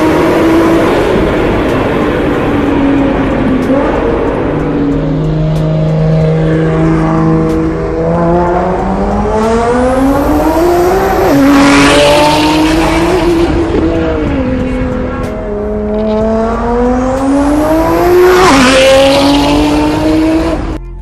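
Nissan GT-R engine running under load, then revving up hard twice, the pitch climbing and dropping sharply at the top of each pull, with a rushing hiss swelling near the peaks.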